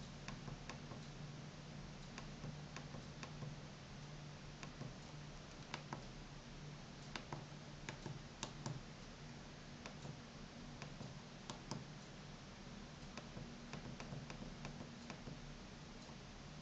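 Button clicks from a FRITZ!Fon MT-F cordless phone handset's keypad as its navigation and menu keys are pressed, single clicks at irregular intervals, over a steady low hum.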